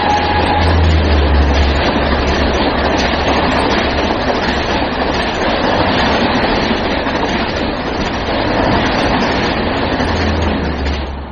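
Train running on the rails: a steady rumble and rattle of rolling railway cars, easing off near the end.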